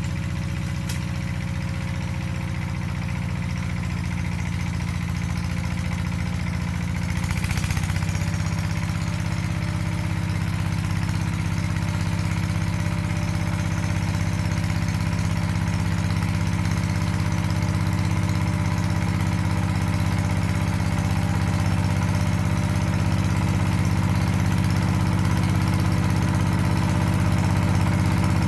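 Walk-behind power tiller's single-cylinder diesel engine running steadily. About seven seconds in, its note shifts slightly and it grows a little louder.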